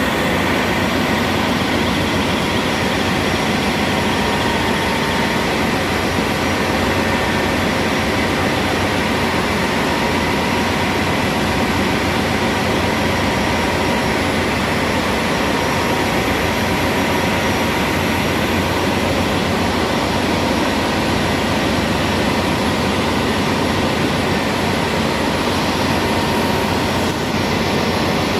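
Ship's engine-room machinery running steadily and loudly, a dense unbroken drone with a few steady whining tones over it.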